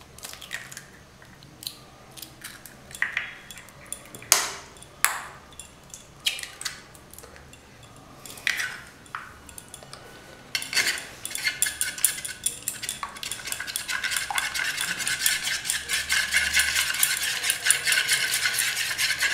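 Two eggs cracked open into a bowl, with scattered separate clicks and taps of shell. About ten seconds in, a metal spoon starts beating the raw eggs in the bowl: a fast, steady clatter that grows louder.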